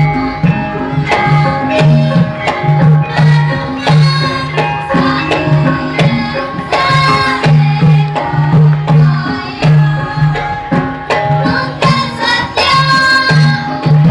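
Javanese gamelan (karawitan) ensemble playing: ringing metallophone notes over steady hand-drum strokes.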